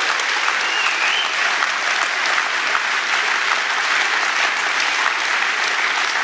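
Large audience applauding, a dense, steady clapping that holds an even level, with a short whistle about a second in.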